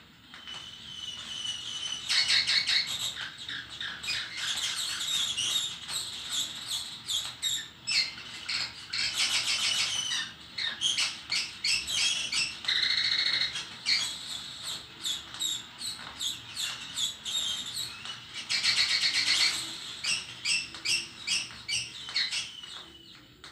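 Birds chirping, a dense run of rapid high chirps and trills.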